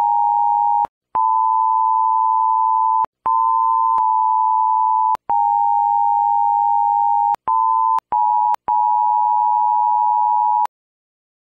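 Emergency Alert System attention signal: a loud, steady two-tone alarm, broken by short gaps into about seven stretches of half a second to two seconds, its pitch stepping slightly higher in a couple of them. It cuts off near the end.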